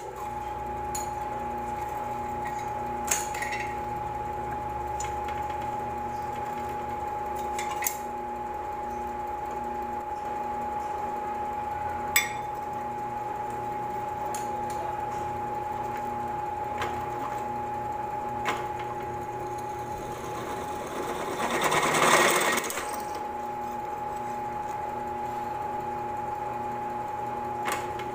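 Bench drill press motor running steadily with a constant whine while its bit drills into a small steel pipe. There are a few light metal clicks, and about 22 seconds in a louder grating burst lasts a second or so.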